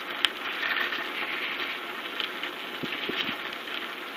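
Bicycle rolling over asphalt: a steady rushing of tyre and riding noise, with a sharp click about a quarter second in and a few lighter ticks from the bike going over bumps.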